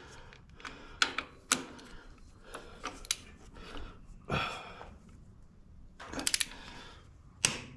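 Hand tools on engine bolts: scattered metallic clicks and knocks from a wrench being worked bolt by bolt, with a short scraping rattle about four seconds in.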